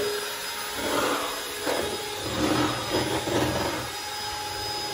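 Electric hand mixer running steadily, whisking egg whites into a foam.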